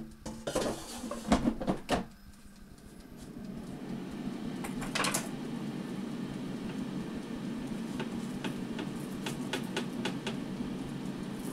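Plastic basket of a dial-controlled air fryer knocking and clattering as it is slid into the fryer, then the air fryer starts and its fan runs with a steady hum that fades in over a second or so. Light clicks come and go near the end.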